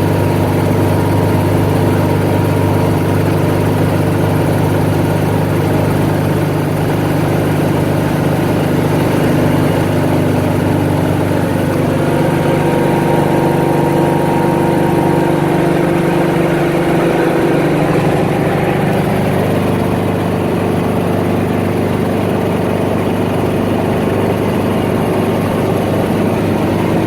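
Helicopter engine and rotor running steadily, heard from inside the cabin during a ride, with a small shift in tone about halfway through.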